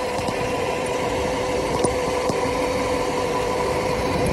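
Small electric dirt bike riding at a steady speed: its motor gives a constant whine over wind and tyre noise.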